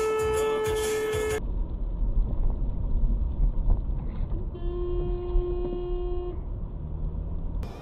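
A car horn held until it cuts off about a second and a half in. A few seconds later a second, lower-pitched car horn sounds for under two seconds over steady road noise.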